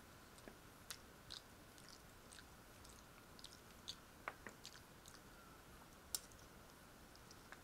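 Faint mouth sounds of someone eating with her fingers: soft chewing and scattered lip-smacking clicks, with sharper ticks about four seconds in and again about six seconds in.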